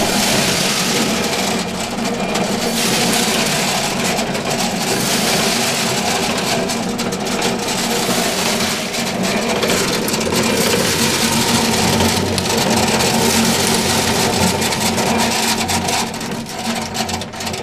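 Corn sheller running loudly and steadily as it shells ear corn, a continuous mechanical hum with dense noise over it.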